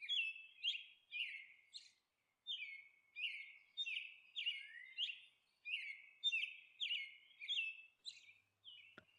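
Small bird chirping: a steady run of short, high chirps, about two a second, that stops about a second before the end.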